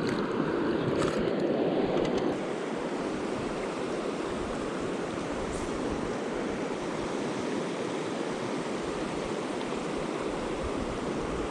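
Mountain river running, a steady even rush of water, a little louder for the first two seconds.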